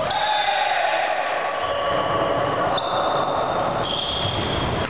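Sound of a volleyball rally in a large gym hall: players' voices and calls mixed with short, high-pitched squeaks coming and going.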